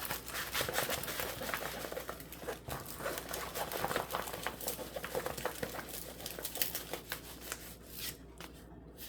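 Plastic-covered diamond painting canvas crinkling and rustling as it is unrolled by hand, dying down near the end.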